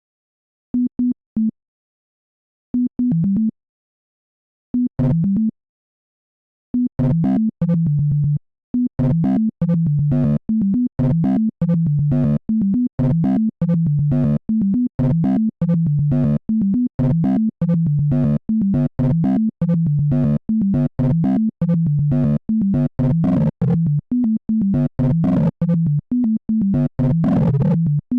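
Software synthesizer in a DAW playing short, low, electronic notes. A few scattered notes come first, then from about seven seconds in a fast, unbroken run of short notes jumping between a few low pitches in a repeating pattern.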